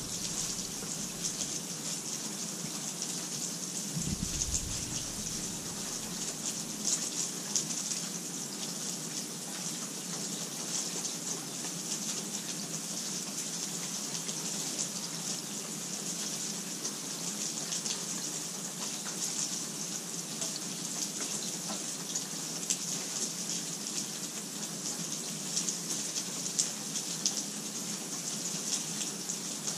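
Steady rain falling: a continuous, even hiss of dense rainfall with scattered individual drops ticking through it.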